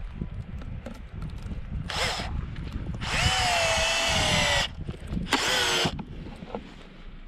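Electric drill running in three bursts, the longest about a second and a half, its whine wavering in pitch as it works into wood.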